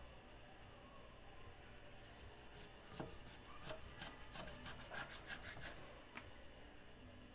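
Kitchen knife cutting raw pork on a wooden chopping block: a run of light knocks and taps from about three seconds in to about six seconds. Under it, crickets chirr steadily and faintly throughout.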